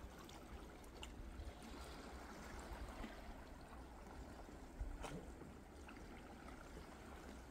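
Faint ambience of a calm sea lapping softly against shore rocks, with a light low rumble and a faint click about five seconds in.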